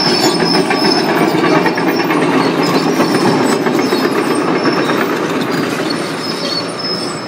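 Demolition excavator at close range: its diesel engine running under a dense, fast metallic clatter with high squeals coming and going. The sound eases off near the end.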